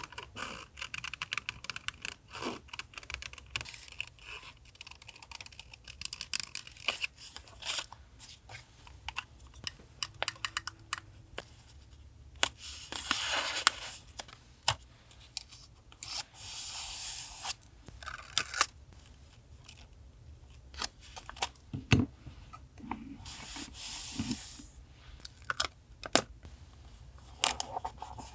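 Paper being handled at a desk: several stretches of paper rustling or tearing, a second or two each, among many small clicks and taps.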